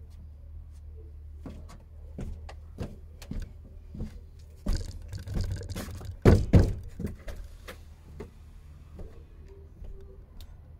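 Irregular knocks and thunks of masonry work on a wood-fired brick oven, with a short scraping stretch just before the loudest pair of knocks a little past the middle.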